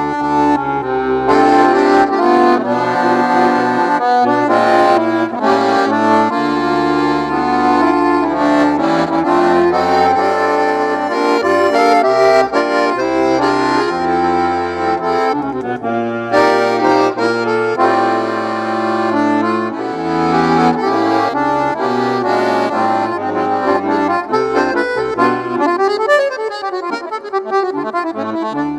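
Accordion (sanfona) playing a tune with sustained chords over bass notes that change every second or two.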